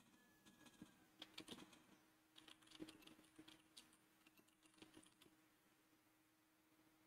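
Faint computer keyboard typing: an irregular run of keystrokes that stops about five seconds in.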